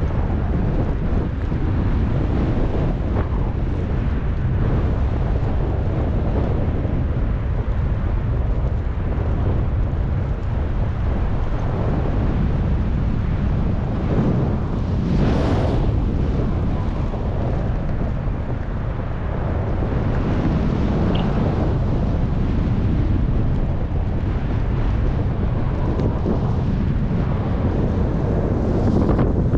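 Wind buffeting the microphone: a steady loud rush, with gusts swelling about halfway through and again near the end.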